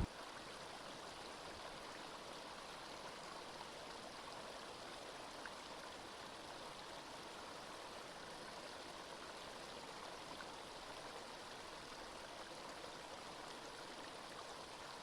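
Steady, even rush of flowing water, as of a stream.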